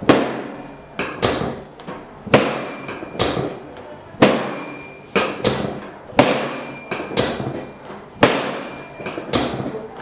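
Chiropractic drop table's lumbar section dropping under the chiropractor's hand thrusts: a dozen or so sharp clacks about one a second, some in quick pairs, each with a brief ring, as the drop piece hits its stop during a lumbar scoliosis adjustment.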